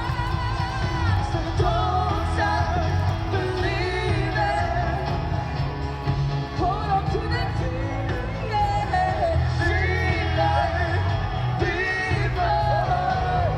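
Pop-rock music with a lead singer over a heavy bass line, with occasional yells from the crowd.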